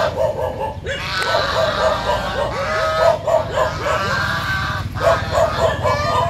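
A flock of white domestic geese honking loudly, many short calls following each other quickly and overlapping, with brief lulls about a second in and near five seconds.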